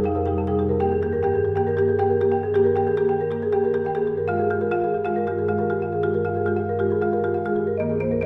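Background music: quickly repeated pitched notes over a held bass line, with the chord changing every three to four seconds.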